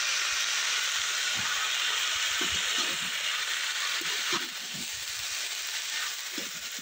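Shredded cabbage and fried potato pieces sizzling in a metal kadai, with a few short scrapes of a metal spatula stirring them. The sizzle eases a little about four seconds in.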